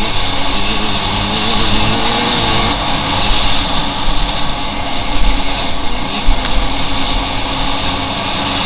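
Enduro dirt-bike engine running under throttle, its pitch wavering up and down as it revs, over a steady rushing noise.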